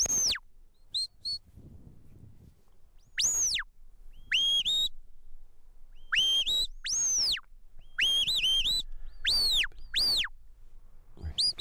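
Sheepdog handler's whistle commands to a working border collie: a string of sharp, high whistles every second or two, some single notes that rise and then fall, others quick runs of short pips. They are signals steering the dog around the sheep.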